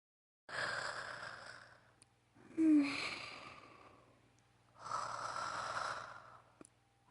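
Acted snoring by a female anime character's voice: three slow, breathy snoring breaths starting about half a second in. The middle one is the loudest, with a short falling voiced snort near its start.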